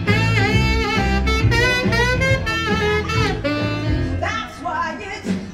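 Saxophone playing a quick, jazzy solo line of runs and bent notes over a band's bass line; it eases off about four and a half seconds in.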